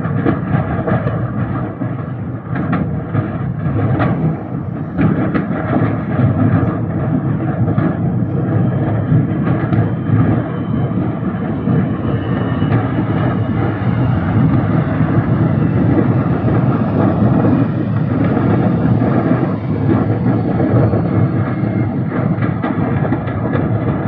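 A large house fire burning: a steady, loud roar of flames with frequent crackles and pops throughout.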